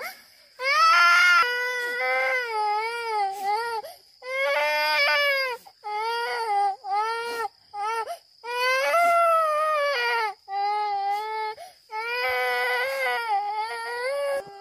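High-pitched crying: a run of wavering, wailing cries of one to two seconds each, with short breaks between them.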